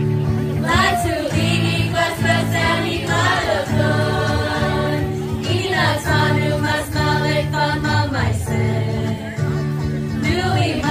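A song with several voices singing together over a steady bass line.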